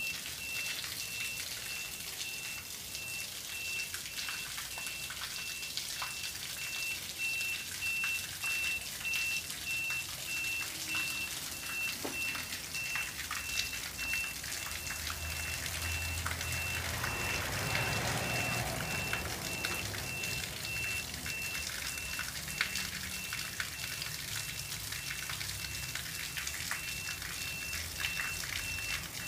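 Jets of water from a jet boat's bilge pump outlets splashing steadily onto pavement, a continuous hiss of falling water. A low rumble swells briefly about midway.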